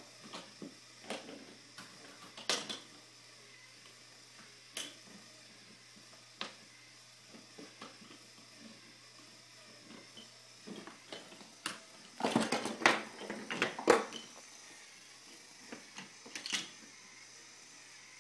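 Wooden toy trains and track pieces clacking and knocking as a toddler handles them, in scattered single knocks with a longer run of rattling clatter about twelve seconds in.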